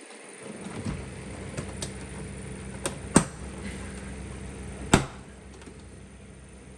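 Two loud sharp knocks and snaps, about 3 and 5 seconds in with a lighter one just before the first, as a truck door trim panel is struck and forced off, its plastic retaining clips popping loose.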